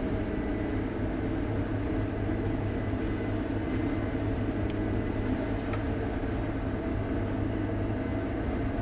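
Case IH combine running steadily under load, its engine and threshing machinery giving a constant drone as it works through thick, heavy wheat with green straw, heard from the cab.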